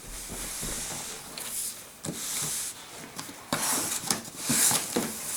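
Cardboard box being cut open and handled: uneven scraping and rubbing of cardboard and packing tape, with a few small knocks.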